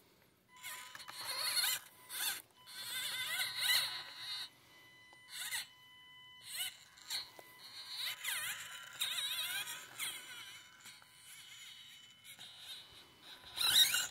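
Axial SCX24 micro crawler's upgraded P90 motor and gears whining in short bursts, the pitch rising and falling with the throttle as the truck crawls over rocks.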